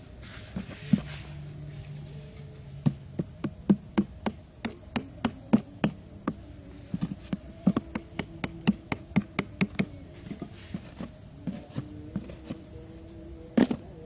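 Flies buzzing close by, with a run of sharp, irregular clicks and taps, several a second, as a hand fits sticks and a round lid over a hole in the ground.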